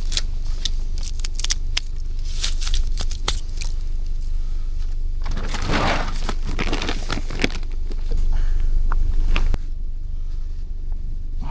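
Wind buffeting the microphone with a steady low rumble, over crinkling, rustling and clicks from a tarp being handled and tied down with paracord. There is a louder stretch of rustling in the middle.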